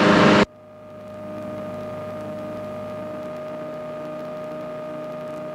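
Steady drone of a light airplane's engine and propeller heard in the cockpit during a climb, with a steady hum tone over it; it fades in about a second in and then holds level.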